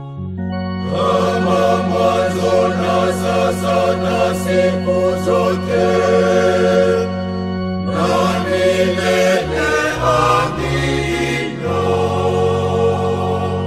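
Choir singing a Swahili Lenten hymn over sustained instrumental chords, with a short break in the voices about seven seconds in.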